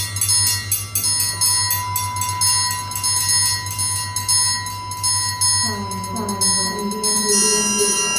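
Orchestral triangle struck rapidly and evenly with a metal beater, its bright overtones ringing on. About six seconds in, a lower tone enters and slides down in pitch.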